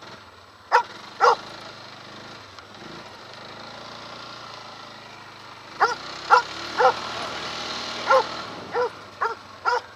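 A dog barking beside a running quad (ATV): two sharp barks about a second in, then a quick run of about eight barks in the second half. Under the barking is the quad's engine, running steadily.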